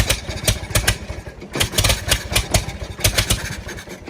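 Farmall 400 tractor's four-cylinder engine being cranked over by the starter in extreme cold, turning over in uneven bursts without catching, and dying away near the end. The owner thinks it is getting spark but no fuel, suspecting a stuck or dirty carburetor float or needle.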